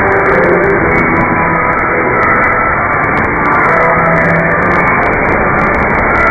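Music from the Voice of Korea's sign-on received over shortwave AM radio, half buried in heavy static and fading noise. It sounds muffled and narrow, with held notes barely rising above the hiss.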